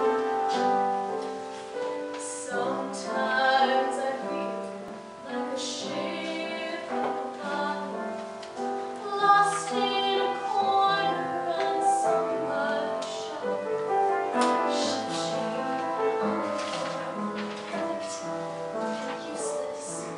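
A woman singing a musical-theatre song solo, with piano accompaniment.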